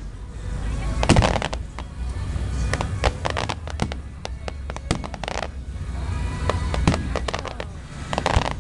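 Aerial fireworks going off in a rapid series of sharp bangs and crackles, over a steady low rumble, with music playing alongside.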